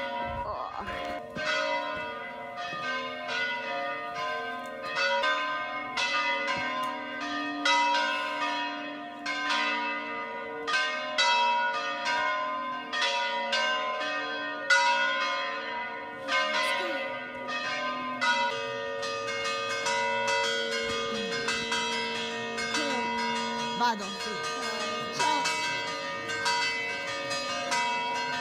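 Church bells pealing: several bells struck in quick, uneven succession, their tones overlapping and ringing on.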